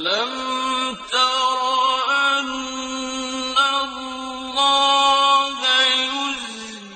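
A man chanting in long sustained notes in the melodic style of Quran recitation. The pitch steps to a new held note about every second.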